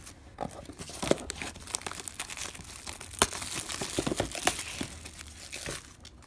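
Plastic shrink wrap being torn and crinkled off a sealed trading card box, a dense run of crackles and sharp snaps, the sharpest about three seconds in.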